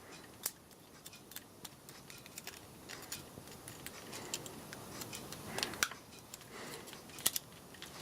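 Irregular small clicks and taps, a few of them sharper, from small electronic parts and wire leads being handled and touched together.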